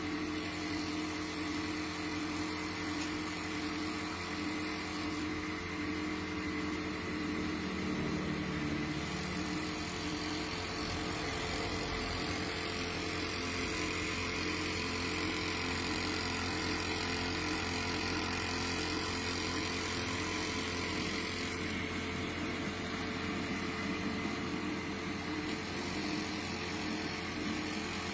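Pegasus W500 three-needle coverstitch industrial sewing machine running steadily, its motor giving a constant hum.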